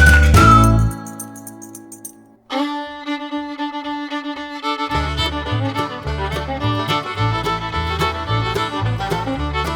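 Instrumental music: one piece fades out over the first two seconds, then after a brief gap a new upbeat tune starts, with a pulsing bass and beat joining about halfway through.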